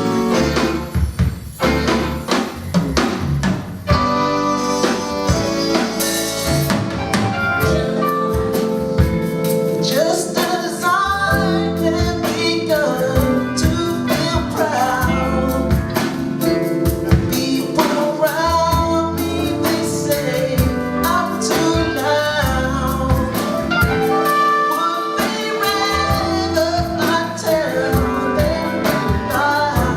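Live band playing a song with a drum kit and other instruments, with singing from about eight seconds in.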